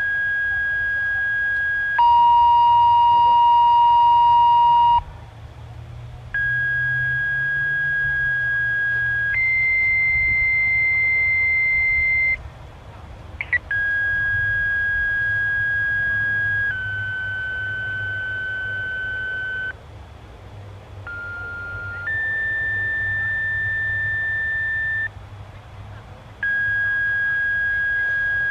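Sequential radio paging tones: pairs of steady electronic beeps, each held about three seconds, stepping abruptly from one pitch to another, with short pauses between pairs. A click falls in one pause, about halfway through.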